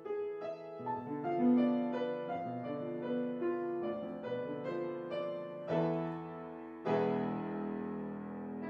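Yamaha grand piano played at a brisk pace: a quick succession of single struck notes, then a loud chord about six seconds in and another about seven seconds in, held and slowly fading to near the end.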